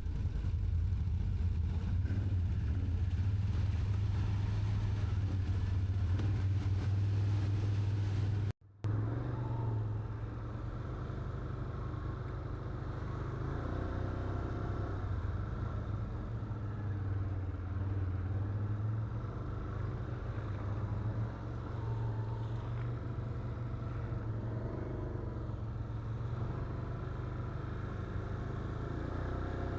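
ATV engine running at trail speed, a steady drone whose pitch rises and falls a little with the throttle. The sound cuts out completely for a moment about eight and a half seconds in, then carries on.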